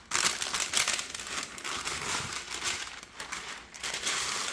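Parchment paper pulled from its box, torn off against the box's cutting edge, and handled: a dense, irregular crinkling and rustling of stiff paper.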